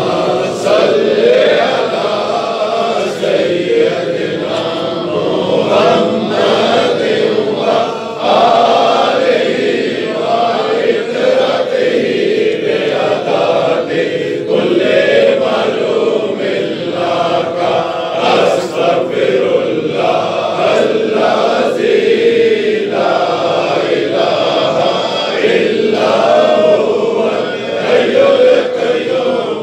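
A group of men chanting together, many male voices sustained without pause.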